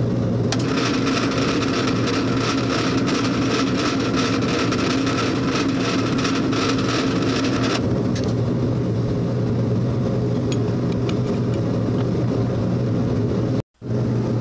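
Drill press motor running with a steady hum while a twist drill bores a tap-drill hole for 10-32 threads into a metal block. A scratchy cutting hiss lasts about seven seconds, then stops while the motor keeps running.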